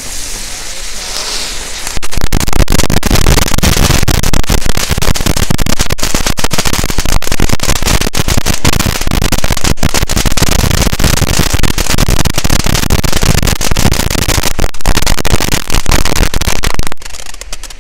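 Consumer firework cake firing a dense, rapid barrage of crackling bangs that begins abruptly about two seconds in, runs on without a break for some fifteen seconds and cuts off shortly before the end.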